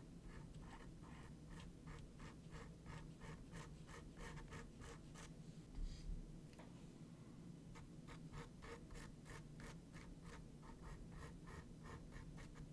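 Foam wedge sponge dabbing paint onto a small canvas: faint, quick soft taps, about four a second. They stop for about two seconds midway, with a soft thump, then start again.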